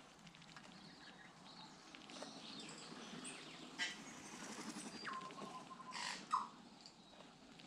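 Tui calling in short phrases: a few clicks, then a clear whistled note a bit past the middle that drops and holds for about a second, followed by a short sharp note.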